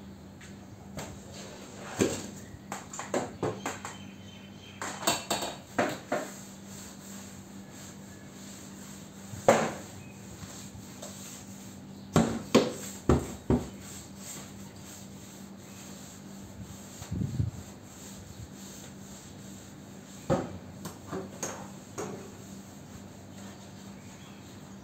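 Plastic broom scrubbing and sweeping a wet tiled floor: scattered brush strokes and knocks of the broom head and handle, in clusters with pauses between, over a steady low hum.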